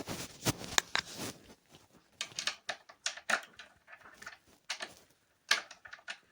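Key turning in an old mortise door lock: a run of metal clicks and rattles from the bolt and latch, with a pause in the middle.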